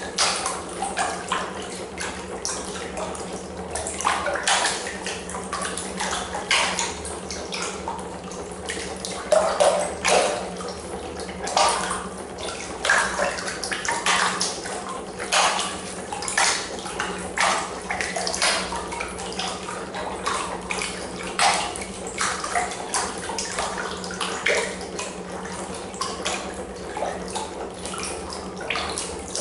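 Water splashing and churning in a plastic tub, stirred by a coil-driven neodymium-magnet piston engine, in irregular splashes. A steady low hum runs underneath.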